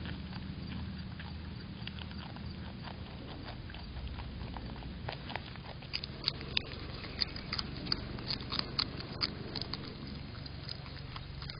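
Groundhogs biting and chewing raw squash close to the microphone. Over a low steady hum, a run of sharp, irregular crunching bites starts about halfway through.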